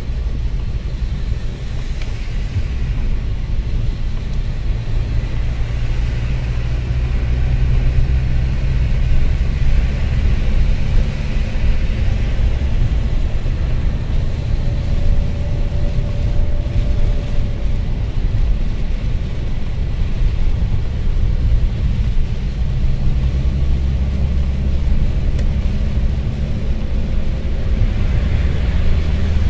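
A car driving on a rain-soaked highway, heard from inside the cabin: a steady low drone of engine and road noise, with a hiss of tyres on the wet road that swells and fades.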